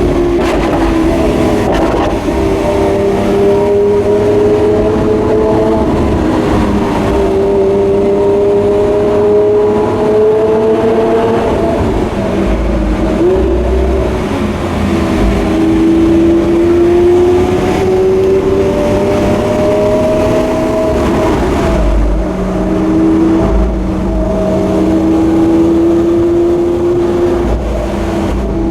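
Lamborghini Aventador S's V12 engine on its stock exhaust, heard from inside the car while it drives. Its pitch climbs slowly and drops back several times as it shifts up through the gears.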